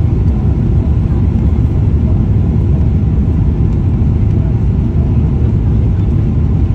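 Steady low rumble of a Boeing 777-300 airliner heard from inside the cabin, the engines and the airflow over the fuselage, as it flies low on approach.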